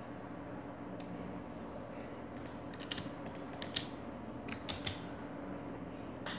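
Scattered clicks of a computer keyboard and mouse: a single click about a second in, then a quick run of several between about two and a half and five seconds in, over a steady low hum.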